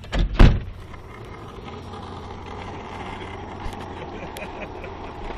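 A car door shuts with two quick heavy thuds, then the car's engine and road noise run steadily, heard from inside the cabin.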